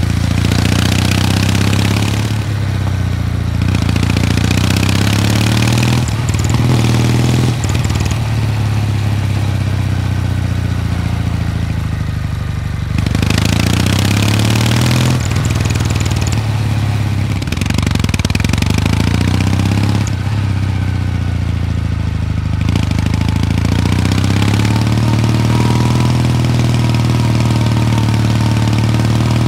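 Kawasaki W800 Street's air-cooled parallel-twin engine running on the move. Its pitch rises and drops several times as the throttle and gears change, under a hiss that comes and goes.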